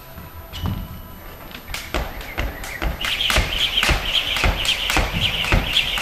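Jump rope doing double unders: the rope slaps the mat and feet land in a quick, even rhythm of about three to four strokes a second. The rhythm settles in after a few scattered strokes in the first couple of seconds, with a high chirp on each turn.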